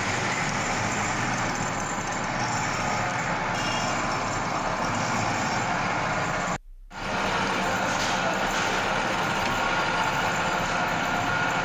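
Shaper machine running, its tool cutting a keyway into a steel shaft: a steady mechanical noise, which cuts out briefly about seven seconds in.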